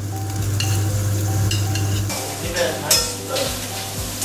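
Aromatics sizzling in hot oil in a stainless steel wok as potatoes and shallots are tipped in. A metal spatula then stirs and scrapes against the wok, with a few sharp clinks a little past halfway, over a steady low hum.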